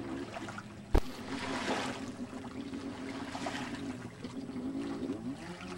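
Water splashing and sloshing, with the steady hum of a small watercraft engine running on the lake, its pitch wavering up and down. One sharp click about a second in.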